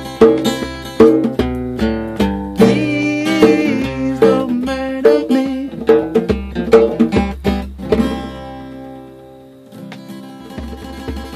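A plucked string instrument picked in a quick, steady rhythm. About eight seconds in the picking stops and a chord is left ringing, then notes start again, softer, near the end.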